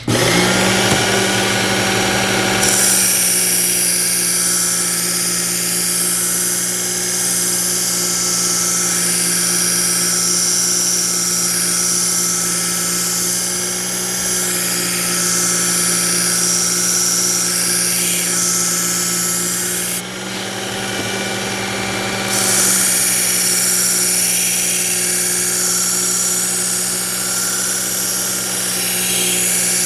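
Work Sharp electric belt knife sharpener running with a 120-grit belt. The motor hums steadily throughout, and a loud high grinding hiss comes and goes as the kitchen-knife blade is drawn across the belt at a 25-degree guide angle to grind out a nick in the edge. The grinding starts a couple of seconds in and drops out for a couple of seconds around two-thirds of the way through, while the motor keeps running.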